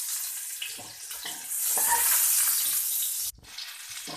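Garlic cloves and ginger sizzling in hot oil in a steel wok, stirred and scraped with a slotted metal spatula. The sizzle swells loudest about two seconds in, then cuts off suddenly, leaving quieter stirring.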